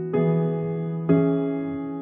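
Background music: slow, gentle piano chords, a new chord struck about once a second and left to ring out.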